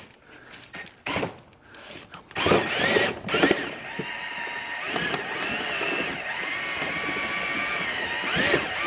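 Cordless drill turning the stirrer of a paint can's mixing lid to mix primer. A few clicks and short bursts come first. From about two and a half seconds in, the drill runs steadily with a whine.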